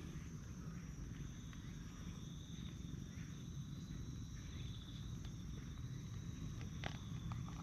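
Brown tabby cat purring steadily close to the microphone while being stroked, with insects trilling in the background.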